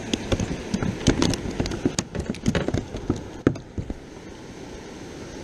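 A freshly landed bass flopping and thrashing: a rapid, irregular run of slaps and knocks that stops about four seconds in.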